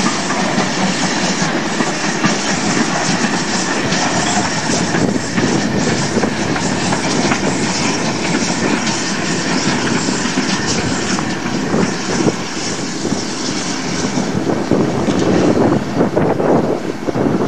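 GWR tank steam locomotive running along the track with a coach in tow, a steady loud rush of running noise.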